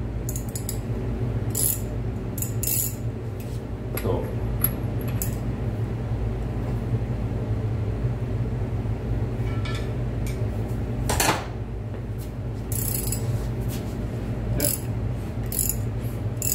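Scattered metallic clinks and clicks of a socket ratchet on the 27 mm ARP crank bolt as it is fitted into an LS engine's harmonic damper and turned in by hand. The loudest clink comes about eleven seconds in, with a quick cluster soon after, over a steady low hum.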